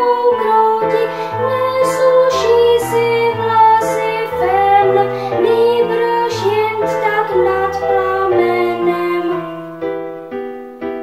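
A young girl singing a song with piano accompaniment. Near the end the voice and accompaniment fade out, and a new piano phrase starts.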